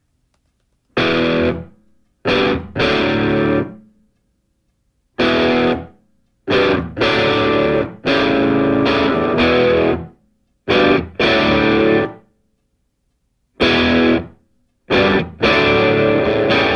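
Intro music: a distorted electric guitar playing chords in abrupt stop-start phrases, with short silences between them.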